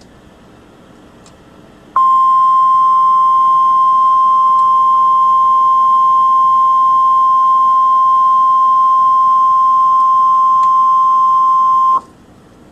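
NOAA Weather Radio 1050 Hz warning alarm tone: a single loud, steady tone starting about two seconds in, held for about ten seconds and cutting off suddenly. It signals that an urgent warning broadcast, here a flash flood warning, follows. Faint radio hiss comes before and after it.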